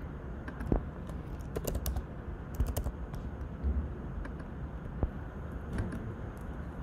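Computer keyboard keys tapped in a short, uneven run of typing, with a few separate clicks later on, over a faint steady background hiss.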